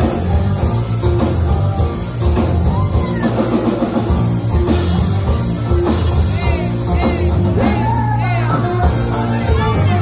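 Dance music with a singing voice over a steady bass and drum beat, the singing clearest in the second half.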